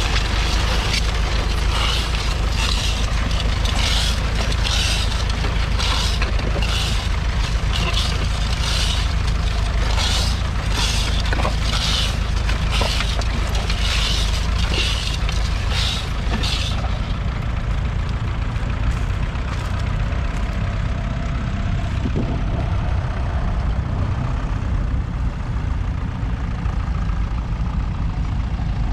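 Ferguson TEF20's 2.1-litre four-cylinder diesel engine running steadily under load as it pulls a plough. For the first half a hiss repeats a little over once a second; after that the sound turns duller.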